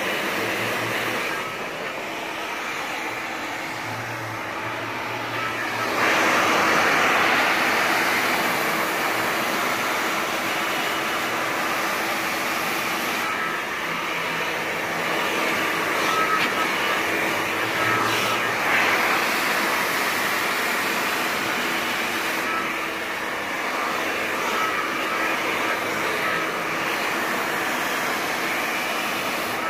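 Handheld hair dryer running steadily, a continuous rush of air with a faint motor hum, during a straight blow-dry with a round brush. It gets louder about six seconds in.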